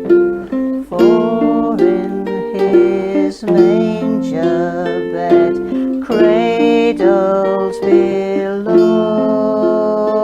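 Carol music on a plucked string instrument, chords struck about once a second, with a wavering melody line held over them: an instrumental passage after the last sung line.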